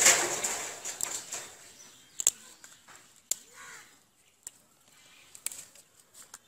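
Leafy amaranthus stalks handled by hand: a loud rustle of leaves at the start, then a few sharp snaps spaced about a second apart as leaves and tender tips are broken off the stems.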